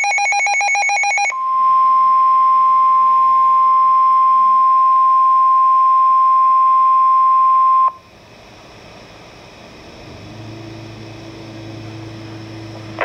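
NOAA Weather Radio alert: the tail of the SAME header's warbling digital data burst, then the steady 1050 Hz warning alarm tone for about six and a half seconds, which cuts off abruptly. Low radio hiss and hum follow, the hum growing louder near the end.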